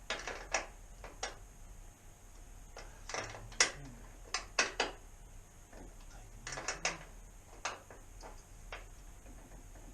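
Irregular clicks and knocks of hand tools and exhaust hardware being handled during an ATV slip-on exhaust install, some in quick clusters a few seconds in and again near seven seconds.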